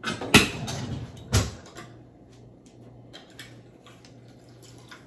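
Kitchen utensils knocking on a cutting board while limes are juiced: two sharp knocks about a second apart, then quieter clicks as a handheld lime squeezer is worked, over a faint low hum.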